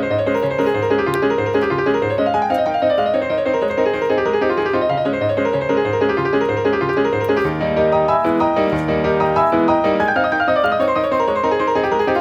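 Background piano music: a flowing piece of running notes that rise and fall, with a few held chords a little past the middle.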